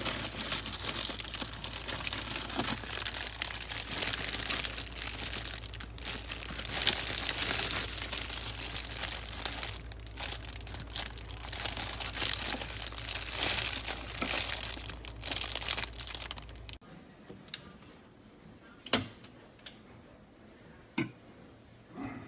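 Plastic food bags crinkling and rustling as they are rummaged through and pulled off a refrigerator shelf, over a steady low hum. The crinkling and hum stop abruptly about 17 seconds in, followed by a few sharp knocks a couple of seconds apart.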